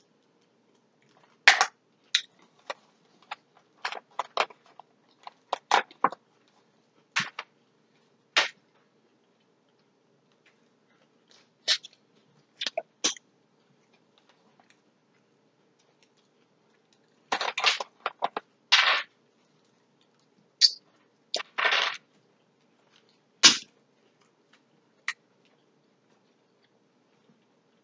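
Close-up eating sounds of shellfish: sharp clicks and cracks of shells being worked open, with chewing and smacking, in scattered bursts with silent gaps between. A few longer, noisier bursts come about two-thirds of the way through.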